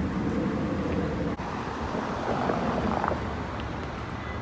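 Steady city traffic noise outdoors at night, with a brief dropout a little over a second in.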